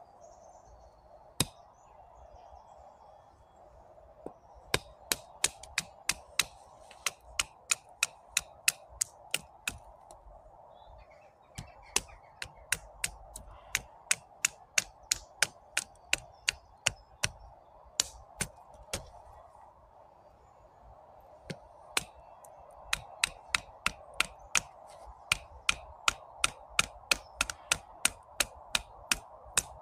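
Small multitool axe chopping into a piece of wood to split it: sharp strikes about two a second, in three runs after a single first blow.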